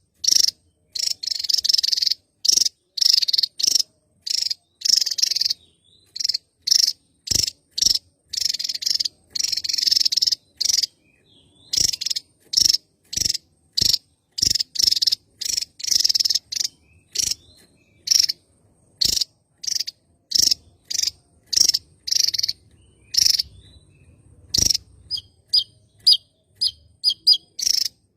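Javan tesia singing: a long series of short, high phrases repeated one to two times a second, some run together into longer phrases. Near the end the notes turn thinner and clearer and come faster.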